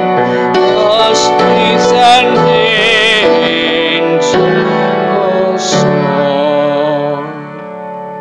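A man singing the closing phrase of a hymn with vibrato over piano accompaniment. The sound fades as the last chord dies away about seven seconds in.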